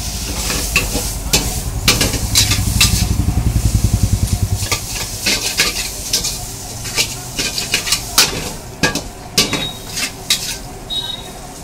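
Noodles sizzling in a hot wok on a gas burner, with metal tongs repeatedly clanking and scraping against the wok as the noodles are tossed. A low rumble runs under the first five seconds or so.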